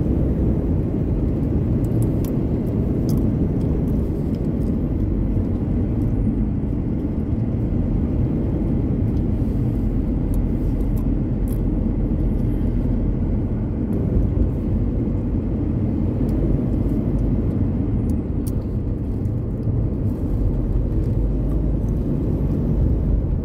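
Mitsubishi Pajero driving along a road, heard from inside the cabin as a steady engine and tyre rumble, with a few faint light clicks.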